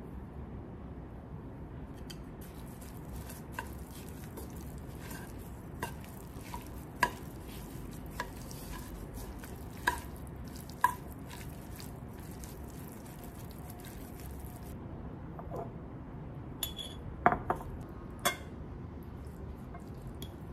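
Chopsticks tossing shredded carrots in a brass bowl, with occasional sharp clinks against the metal that ring briefly. Near the end come a few brighter clinks of an implement against a glass jar as the carrots are packed in.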